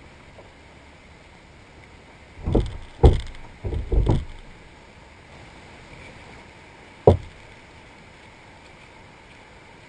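A series of dull, heavy knocks: four close together from about two and a half to four seconds in, then one sharp single knock about seven seconds in, over a steady hiss.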